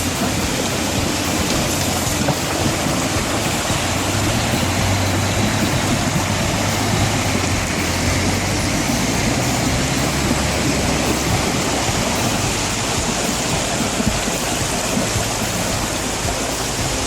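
A vehicle engine running low beneath a steady, loud rushing noise.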